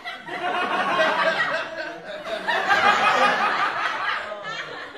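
Laughter, loud and continuous, dying down near the end.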